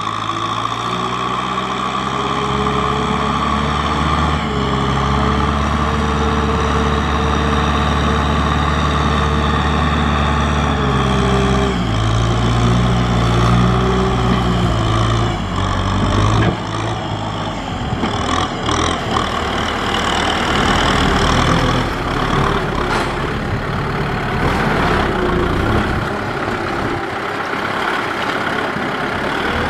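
Kubota M6040SU tractor's diesel engine running as it drives, its pitch stepping up and down with engine speed through the first half. In the second half the sound turns rougher and noisier, with a few knocks.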